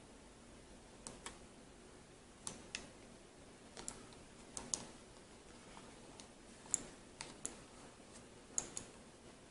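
Faint, irregular light plastic clicks and taps, about a dozen, some in quick pairs, from a plastic gaming mouse being handled and pressed back together during reassembly.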